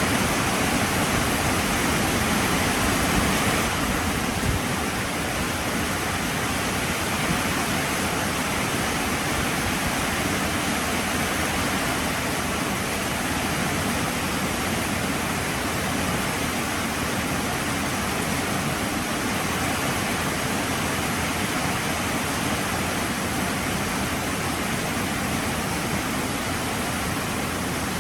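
Heavy rain falling in a steady, dense hiss, easing slightly about four seconds in.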